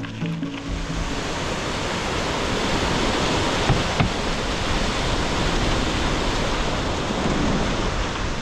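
Steady rushing wind noise buffeting the microphone, with a heavy low rumble, as from riding a bicycle at speed. Two brief clicks come about four seconds in.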